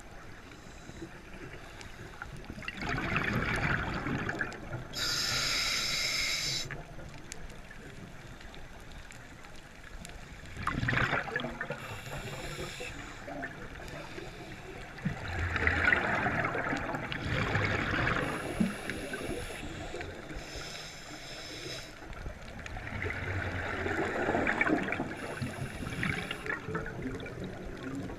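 A scuba diver breathing through a regulator underwater: short hissing inhalations alternate with longer bubbling, gurgling exhalations, a few breaths in all.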